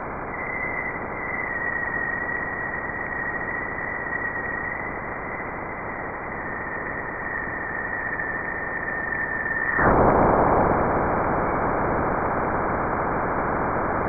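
Jupiter's radio emissions from a space probe, converted to sound: an even hiss with one steady, high whistle-like tone over it. About ten seconds in the tone stops and the hiss grows louder.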